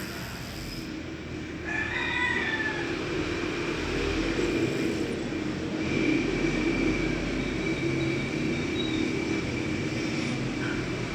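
A rooster crows once about two seconds in, over a steady low rumble.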